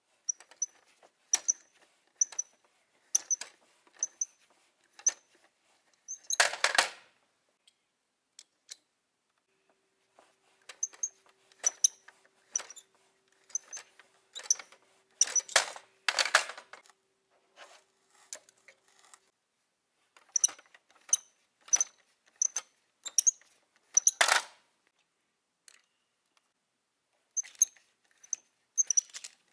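Plastic toy belt conveyor worked by hand, clicking about once a second as small toy cars ride up the belt. A few times a louder plastic clatter, as a toy car tips off the top into the plastic dump truck's bed.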